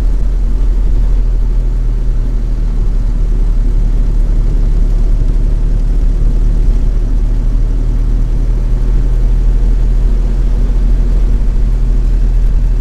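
1931 Ford Model A pickup's four-cylinder flathead engine running steadily as the truck drives along, a constant low drone with no change in pace.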